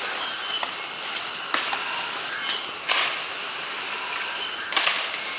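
Hikers' footsteps crunching on dry leaf litter and brushing through forest undergrowth: irregular short crackles over a steady high hiss.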